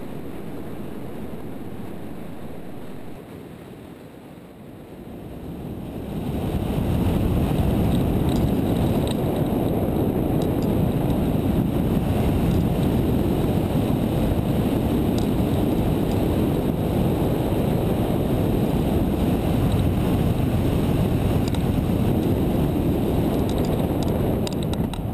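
Wind rushing over the microphone of a camera mounted on a hang glider in flight. It grows much louder about six seconds in and holds steady, then falls away near the end as the glider lands.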